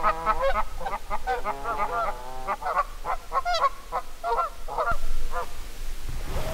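Canada geese honking, a quick series of calls that stops about five and a half seconds in.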